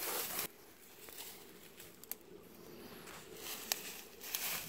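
Faint rustling of dry grass and stems, with a couple of small sharp snaps or clicks; it drops away suddenly about half a second in and rises again near the end.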